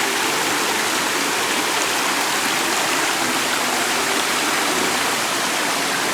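Brook water and a small waterfall flowing over rocks: a steady, even rush of running water.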